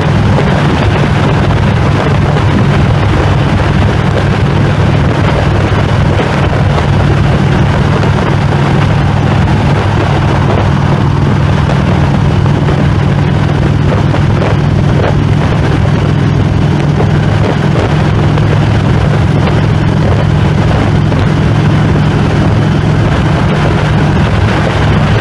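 Harley-Davidson Road King's V-twin engine running steadily at highway cruising speed, with wind rushing past.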